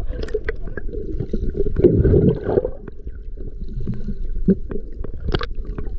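Muffled underwater water noise picked up by a camera held under the surface, low and dull, with scattered clicks and pops and a louder swell of water sound about two seconds in.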